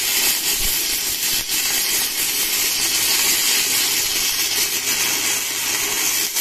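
Stick-welding arc from a Sanrex 400 MMA DC inverter welder, burning a 10-gauge electrode on a thick steel plate: a steady, loud hiss.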